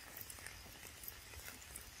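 Light rain pattering on forest leaves: a faint, even hiss scattered with many small ticks of drops, over a low rumble.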